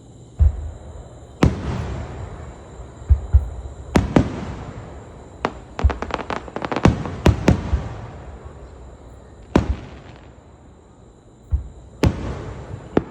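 Aerial fireworks shells bursting, a dozen or so sharp bangs at uneven intervals with a quick volley of them in the middle, each trailing off in a rumble and crackle.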